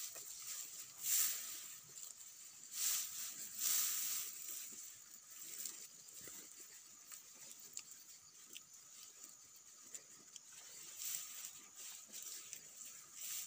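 A cow grazing: a run of small crackling rustles as grass is torn up and chewed, with louder rustling bursts about a second in, around three to four seconds in, and again near the end.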